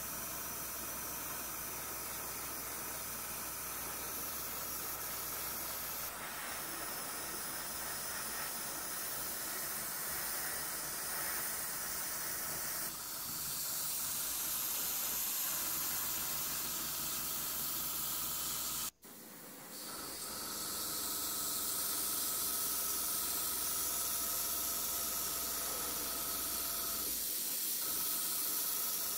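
Airbrush hissing steadily as it sprays primer onto a plastic scale model, run at about 2 bar (25 psi), with the steady hum of its compressor underneath. The hiss breaks off for a moment about two-thirds of the way through, then resumes.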